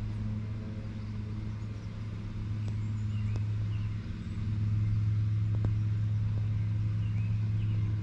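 Distant lawn mower engine running with a steady low drone, getting louder about halfway through.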